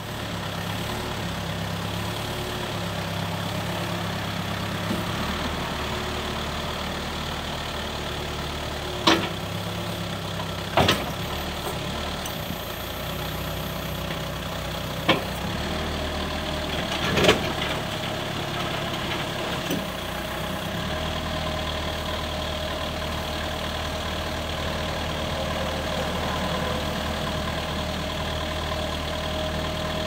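JCB 1CXT compact backhoe loader's diesel engine running steadily, its note shifting now and then as the backhoe hydraulics are worked. Four sharp clunks come as the backhoe arm is raised and folded, the loudest about two thirds of the way through.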